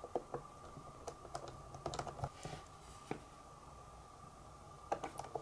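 Scattered light plastic clicks and taps from hands handling a Logitech Squeezebox Boom radio while it is being put back together and its front-panel buttons pressed, with a quick cluster of clicks near the end. A faint steady whine sits under them.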